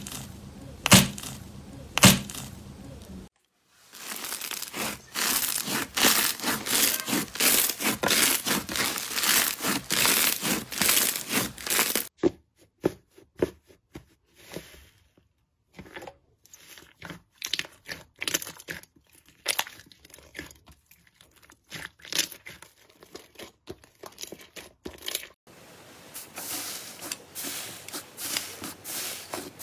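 Hands squeezing, poking and pulling slime, including fluffy cloud slime, making crackling, crinkling and tearing sounds. A few loud pops in the first three seconds, dense crackling from about four to twelve seconds, then sparser crackles and clicks.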